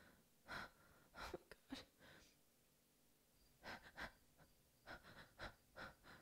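Faint, short, irregular sounds of a woman creeping through a dark room, her quick breaths and movements, in two clusters with a pause of about a second and a half in the middle.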